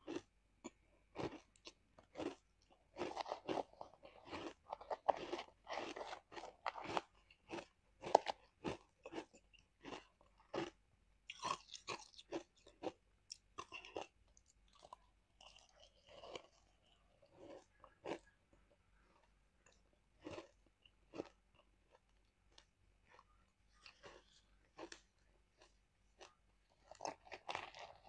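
Ice being bitten and chewed: a run of sharp, short crunches, packed closely together in the first several seconds and coming more sparsely later.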